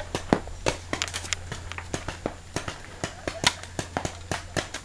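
Paintball markers firing: a rapid, irregular string of sharp pops, about four shots a second, some louder and closer than others.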